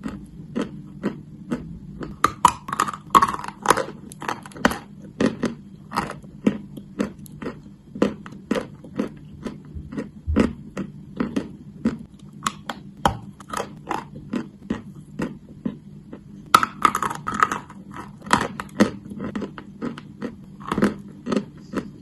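Chalk being crunched close to the microphone: a run of sharp, crisp crunches, roughly two a second, over a faint steady low hum.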